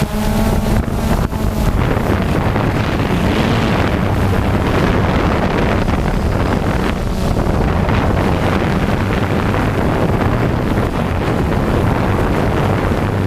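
DJI Phantom quadcopter's motors and propellers buzzing steadily in flight, a low even hum under heavy wind noise on the microphone.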